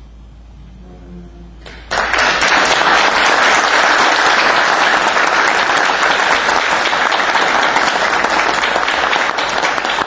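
Audience applauding in a hall. The clapping starts suddenly about two seconds in, after a quiet moment, and keeps up steadily.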